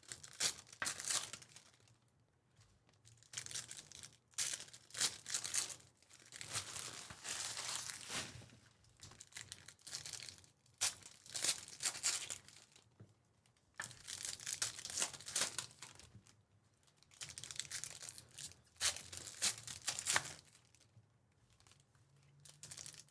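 Foil trading-card pack wrappers being torn open and crinkled, in repeated bursts of crackling and ripping separated by short pauses.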